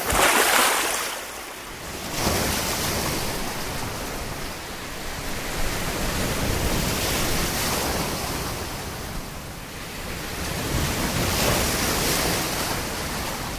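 Sea surf breaking and washing in, a rushing noise that swells and eases every few seconds.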